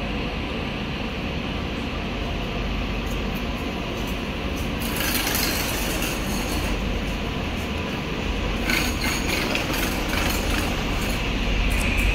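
Train running through a station, a steady rumble with bursts of clattering wheels on the rails about five seconds in and again near nine seconds.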